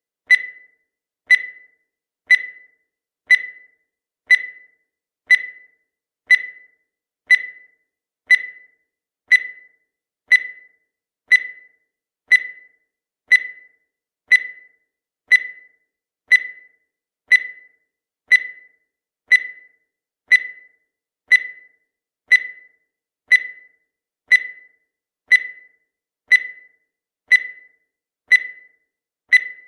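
Countdown timer sound effect: a short, high tick once every second, each one fading quickly, in a steady even rhythm.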